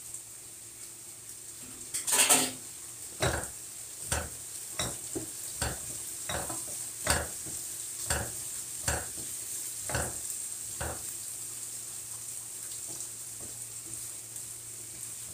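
A wooden spoon stirring chickpeas and tomatoes frying in a pan, knocking and scraping against the pan about once a second over a steady sizzle. The knocks are loudest about two seconds in and stop about eleven seconds in.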